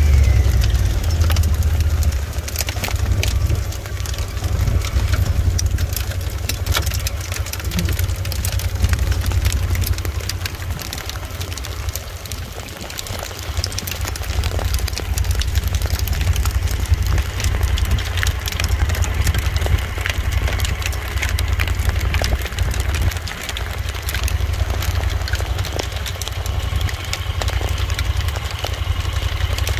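Low, steady rumble of a vehicle driving along a rough, snowy dirt track, with scattered knocks and rattles.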